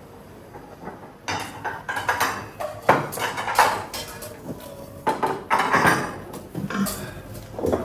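Dishes and cutlery clattering: irregular knocks and clinks of plates and spoons, starting about a second in.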